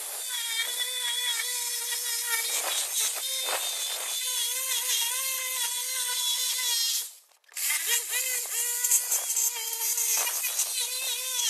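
DeWalt corded jigsaw cutting through a wooden slab along a curve, its motor whining steadily with the blade rasping through the wood. It stops for a moment about seven seconds in, then starts cutting again.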